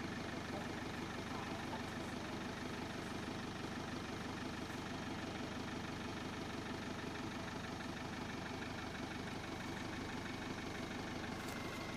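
Diesel engine of a JCB backhoe loader idling steadily.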